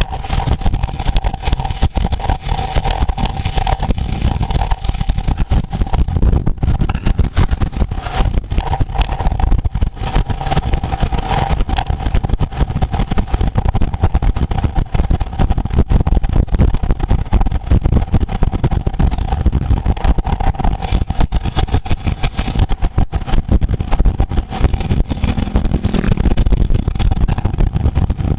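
Wind buffeting the microphone of a camera riding along on a road bike at race speed, a loud, rough rumble, with a steady hum over it.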